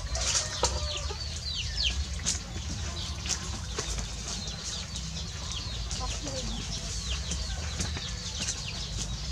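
Many short, high-pitched chirps and squeaks from small animals or birds, most of them gliding downward, with a few clicks. A steady low hum runs underneath.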